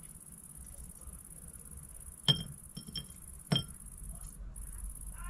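Hookah coals being tended with metal tongs: a few sharp metallic clinks within about a second and a half, the first and last loudest, each with a short high ring.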